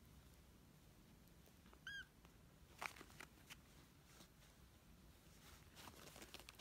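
Two kittens play-wrestling: one brief high squeak from a kitten about two seconds in, then soft scuffling and scratching of small paws and claws on fabric in two short flurries.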